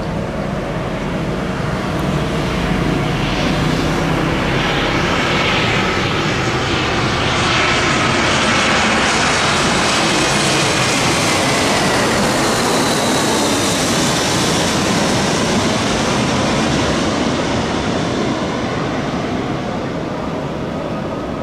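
Airplane engines passing close by: the noise swells to its loudest about halfway through, with a whine that falls in pitch as the aircraft goes past, then slowly fades.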